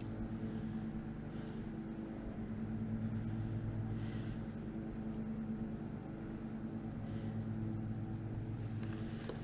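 Steady low hum of a motor running throughout, with several even tones stacked on top of each other. Three faint, short high chirps come about a second and a half, four and seven seconds in.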